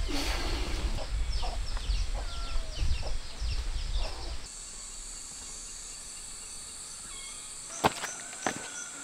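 Chickens clucking and small birds chirping over a low rumble; a little before halfway this gives way abruptly to a steady high insect drone, with a couple of sharp taps like footsteps on rock near the end.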